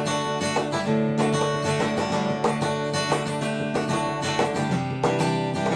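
Background music: picked and strummed acoustic guitar in a country style.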